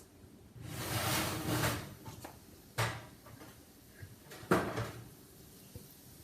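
Oven door opened and a hot roasting pan taken out. A rush of noise lasting about a second comes first, then a click, then a sharp knock about four and a half seconds in as the pan is set down.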